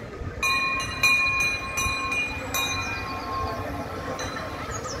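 Bell of a trackless park land train ringing in a quick series of strikes for about two and a half seconds, then fading.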